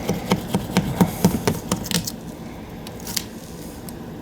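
Razor blade scraping cured windshield-repair resin off a cracked phone's glass screen in short, quick strokes, about four or five a second for the first two seconds, then more sparsely.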